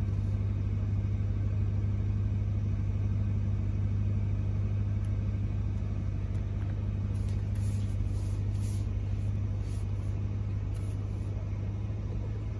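The supercharged 6.2-litre V8 of a 2021 Ram 1500 TRX running at a steady low drone that holds unchanged throughout, heard from inside the cab.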